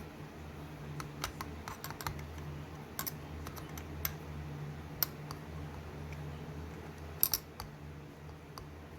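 Scattered light clicks and taps of an Allen wrench, the grip screw and the parts of an AR-15's pistol grip being handled as the grip is worked loose, over a steady low hum. The clicks come in a cluster in the first few seconds, with a louder double click near the end.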